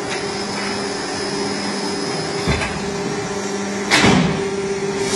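Double-side auto-feeding box cutting press running with a steady motor hum. There is a light knock about two and a half seconds in, then a loud thud with a burst of hiss about four seconds in as the feed table carries the cardboard sheet under the press head for a cut.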